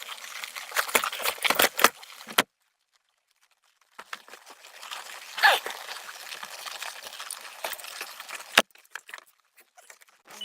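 Steady hiss of rain and wet-road spray, with scattered clicks and rattles. The sound cuts out completely for about a second and a half near the start, then resumes.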